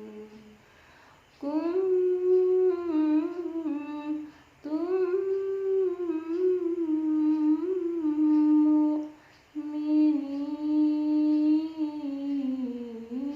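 A solo voice chanting Qur'anic recitation (qiro'ah) in the melismatic murattal/mujawwad style, sung softly and hoarse from a cough and cold. Three long ornamented phrases with short pauses for breath between them: one starting about a second and a half in, one about four and a half seconds in, and one about nine and a half seconds in.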